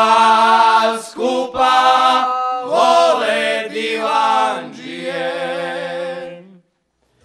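Male vocal group singing a Šokac folk song unaccompanied in harmony: several held phrases with vibrato broken by short pauses, the last note held and stopping about six and a half seconds in.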